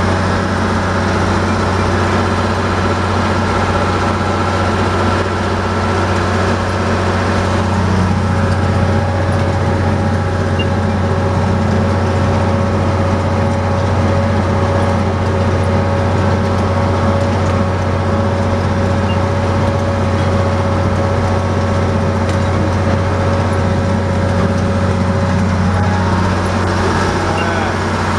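Tractor engine running steadily under load, driving a New Holland 650 round baler through the PTO as it rolls a bale, with a steady higher whine over the engine's low drone.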